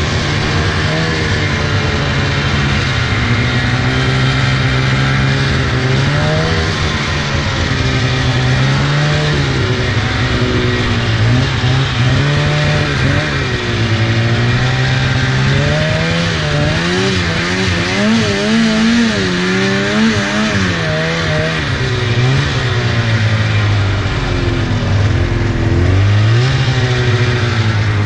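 2004 Polaris RMK 800 snowmobile's two-stroke twin engine running under way, its revs rising and falling repeatedly with the throttle and highest about two-thirds of the way through.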